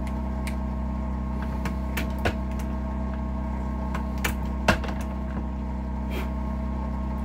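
A few sharp clicks and knocks from shotshell reloading tools and hulls being handled, the loudest about two and a half seconds apart, over a steady electrical hum.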